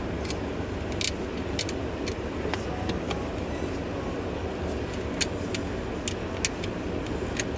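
Light, irregular metallic clicks and ticks from wire ends and terminal hardware being handled and fitted at a car-audio capacitor's terminal, about a dozen in all, over a steady low rumble.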